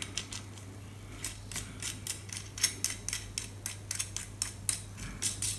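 Small irregular metal clicks and ticks, starting about a second in, as a nut is threaded by hand onto the bolt holding a 2 m halo antenna to its bracket, with the aluminium antenna parts knocking lightly as they are handled.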